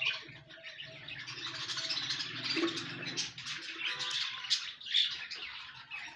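Budgerigars chirping and chattering, many quick overlapping chirps without a break.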